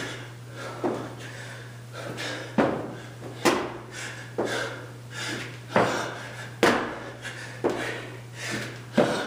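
Repeated thuds and slaps of a person doing burpees, hands and feet hitting a concrete floor and landing from the jumps, roughly one impact a second.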